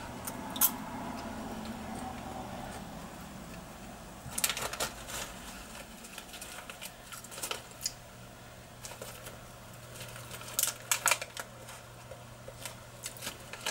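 Scattered crisp crunches and crackles of a dry, fry-shaped potato snack being bitten and chewed, with a plastic snack packet handled, over a steady low hum.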